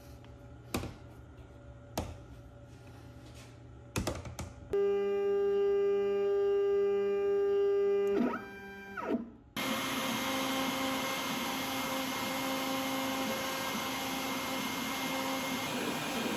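A few knocks and clicks as hold-down clamps are set on a walnut board. Then the X-Carve's stepper motors hum steadily on one pitch while the spindle is probed down to a touch plate, gliding up and back down in pitch as the axis moves. From about ten seconds in, the CNC router and its dust extraction run steadily.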